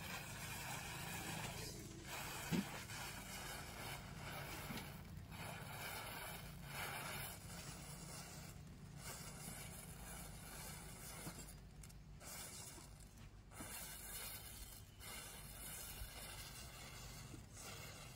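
A chain of matchsticks igniting one after another, giving a steady fizzing hiss, with one sharp crack about two and a half seconds in.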